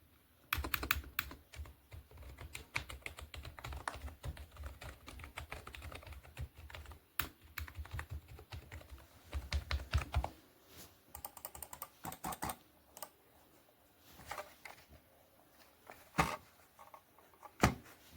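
Typing on a Mars Gaming MCP124 H-Mech gaming keyboard: dense, irregular runs of key clicks for about ten seconds, then a few separate, louder key strikes near the end.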